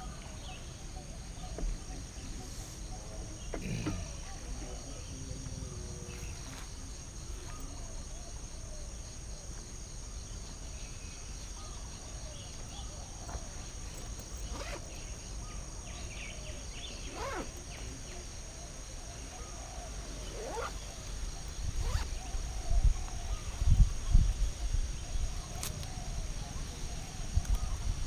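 Steady high-pitched insect chorus of crickets or cicadas, with wind buffeting the microphone in rumbling gusts that grow strong in the last several seconds.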